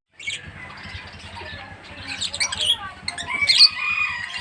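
Lovebirds chattering: many short, shrill chirps and squawks that grow busier and are loudest about three and a half seconds in.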